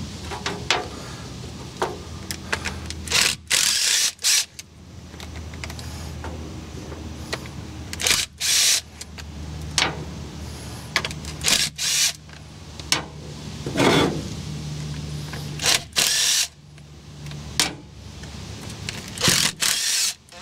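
Ratchet and socket working the 10 mm water pump bolts out of a John Deere 4045T engine: short bursts of ratchet clicking and metal clinks every second or few, over a low steady hum.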